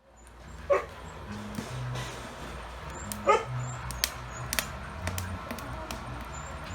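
Homemade rocket stove burning hot with a steady low hum of hot gas, like a butane torch, and sharp crackles from the burning firewood. A dog yelps twice, about a second in and again about three seconds in.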